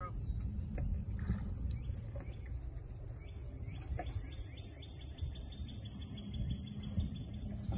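Birds chirping: a short high chirp repeated about once a second, and a faster run of chirps from about three to seven seconds in, over a steady low rumble.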